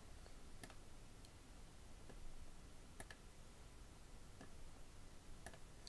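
A few faint computer mouse clicks, spaced irregularly about a second apart, over near silence.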